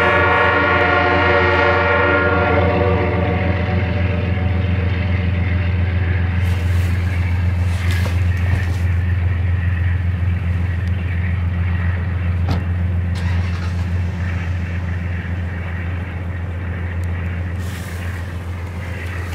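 An Amtrak B32-8WH diesel locomotive's horn ends about two seconds in, followed by the test train of bilevel galley cars rolling past with a steady low diesel rumble and wheel-on-rail noise, with a few sharp clicks. The sound slowly fades as the train moves away.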